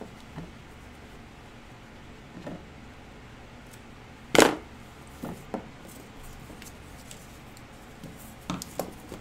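Handling noises as a tape-wrapped wire armature is worked into a cloth doll body: soft fabric rustles and light knocks, with one louder knock about four and a half seconds in.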